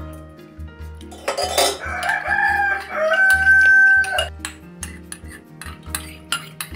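A rooster crowing for about three seconds, starting about a second in, over steady background music. Near the end a metal spoon clinks several times against a ceramic bowl and steel pot.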